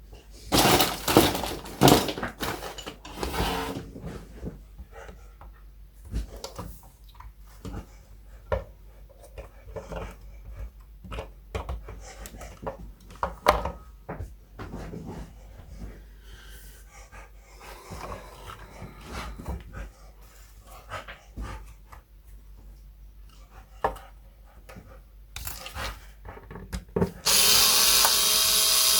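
Workbench handling sounds: scattered clicks and knocks of tools and guitar parts. Near the end a small electric power tool motor runs steadily for about two seconds.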